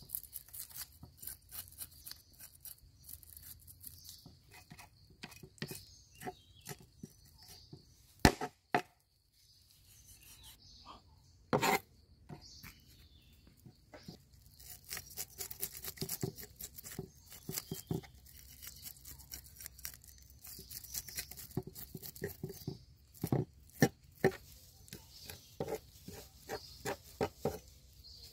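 A cleaver scraping scales off fresh fish on a wooden cutting board: many quick rasping strokes with the scales clicking off, denser in the second half. There are a couple of louder knocks, blade or fish on the board, in the first half.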